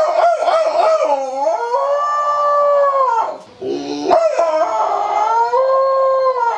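A man imitating a dog howling at night, his voice cupped in both hands: short wavering yelps rise into a long held howl that falls away, then the yelps and a second long howl come again.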